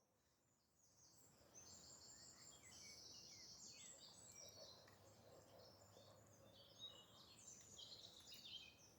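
Near silence, with faint high bird chirps twittering throughout.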